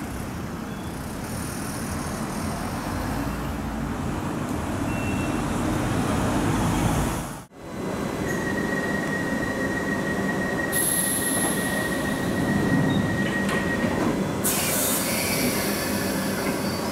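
A steady low background rumble, then, after a cut about halfway through, a London Underground Piccadilly line 1973 Stock train standing at a platform, giving a steady high whine. Near the end a hiss rises as its doors close.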